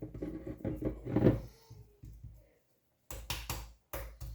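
Kitchen utensils scraping and clattering against dishes as food is served onto plates, in short irregular bursts that come sharper in the last second or so.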